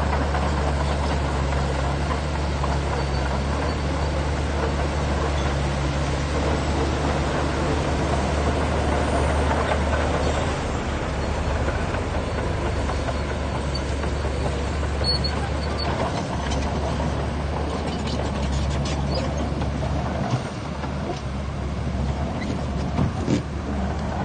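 Shantui bulldozer's diesel engine running steadily under work, with scattered metal clanks and knocks in the second half.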